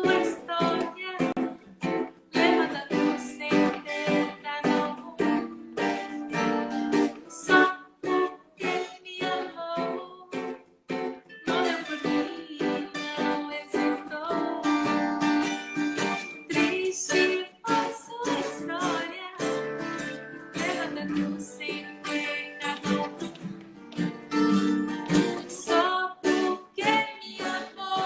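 Live acoustic band music: strummed string instruments playing a steady, rhythmic accompaniment to a gentle Christian song.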